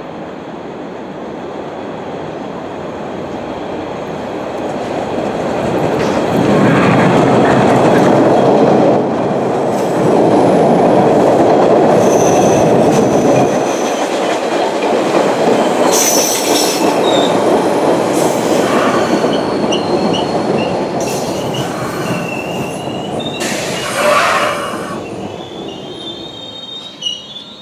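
An MBTA Orange Line train of the older Hawker Siddeley 01200-series cars runs along the platform. Its rumble builds over several seconds, stays loud for about a dozen seconds, then fades. High-pitched wheel squeal comes in during the second half, with a brief loud clack near the end.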